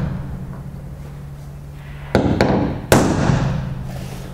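Hammer striking a blunt-point centre punch against the boat's aluminium stem to mark hole centres: three sharp metallic blows about two seconds in, in quick succession, each ringing out through the aluminium hull.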